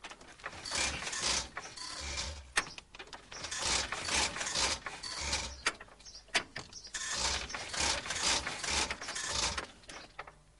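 A 1902 Wolseley's engine being hand-cranked with the starting handle, set on half compression: a series of irregular mechanical strokes, about one a second, many with a low thump, as the engine is turned over.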